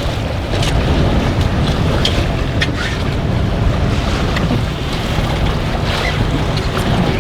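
Strong wind on the microphone with waves slapping against a small boat's hull: a steady low rumble with scattered short splashes.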